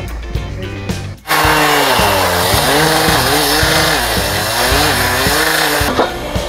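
Background music with a beat, then about a second in a sudden switch to a petrol rail cut-off saw grinding through a steel rail with an abrasive disc. Its two-stroke engine runs hard, its pitch wavering up and down under load, and it cuts off abruptly near the end, leaving the music.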